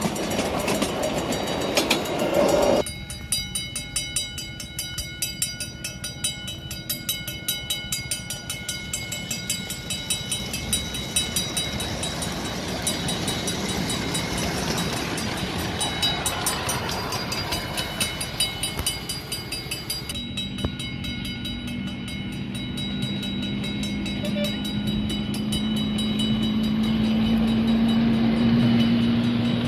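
Large-scale model train running on its track with a fast, even clicking rhythm. A louder noise cuts off suddenly about three seconds in, and from about two-thirds of the way through a steady low hum joins in, rising slightly in pitch.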